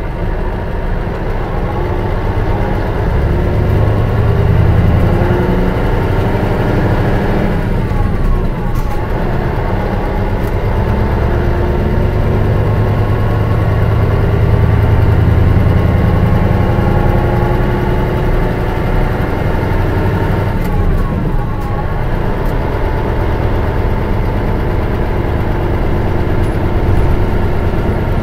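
Diesel engine of a 2002 Mitsubishi Fuso Aero Bus coach with a manual gearbox, heard from inside the cabin, pulling steadily with rising engine pitch. About a third of the way in, and again near three-quarters, it breaks off briefly before building again, as with gear changes.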